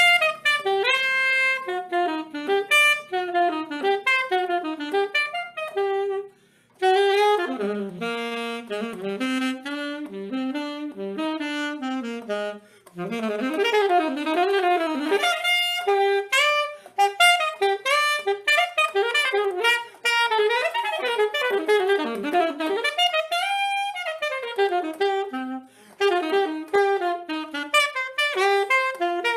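Saxophone playing a single melodic line live, in quick flowing runs and phrases broken by a few short breaths.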